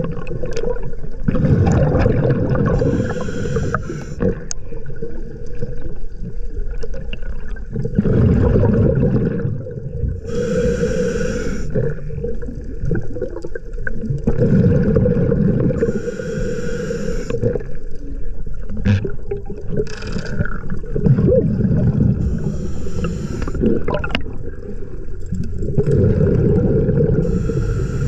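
Scuba diver breathing through a regulator underwater: a hiss on each inhale alternating with the rumbling gurgle of exhaled bubbles, in a slow cycle of a breath every several seconds.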